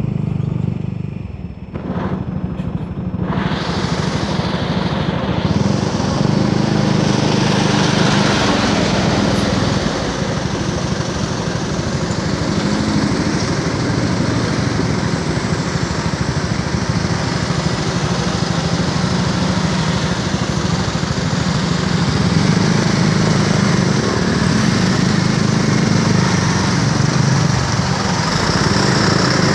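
Motor vehicle engines running loudly and steadily, with a brief dip about two seconds in before the noise swells again.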